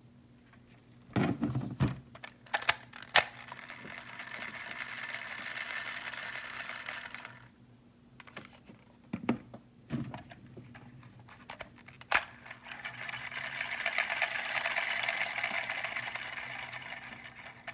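Plastic Raise Buckle toys handled: a few sharp plastic clicks and knocks, then twice a few seconds of rapid, fine clicking from the toys' moving parts.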